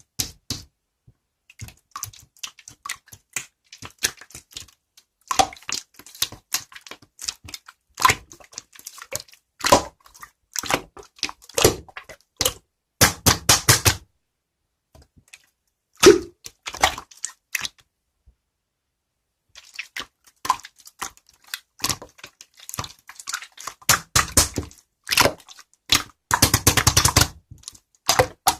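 Sky-blue marbled slime being pressed and stretched by hand, giving irregular sticky clicks and pops. Quick runs of rapid crackling pops come about halfway through and again near the end.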